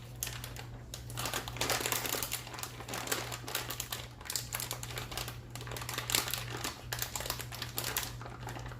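Dense, irregular crackling and crinkling, many small clicks a second, over a steady low electrical hum.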